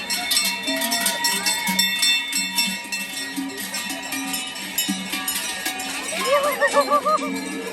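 Many large cowbells clanging and ringing without pause as a herd of cattle walks past, with crowd voices underneath. About six seconds in, a voice rises and falls several times in quick succession.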